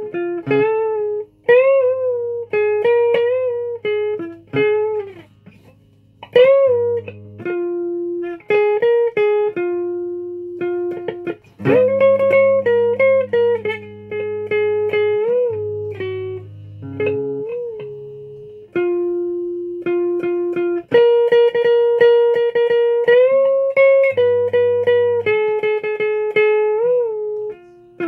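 Guitar music: a melody of plucked, sustained notes with bends and wavering pitch, over held low bass notes.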